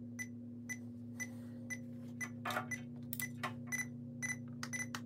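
Digital alarm clock radio's alarm beeping in short, high electronic beeps, about two a second, coming quicker over the last two seconds, with bedding rustling and a tap on the clock's top near the end.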